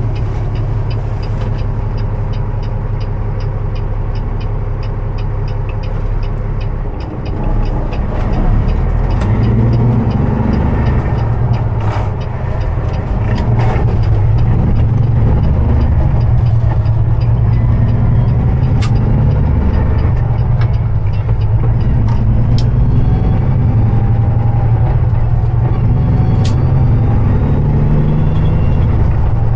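Semi truck's diesel engine heard from inside the cab, with a fast steady ticking over the first several seconds. About seven seconds in the engine pulls louder as the truck accelerates, its pitch rising and falling through manual gear shifts.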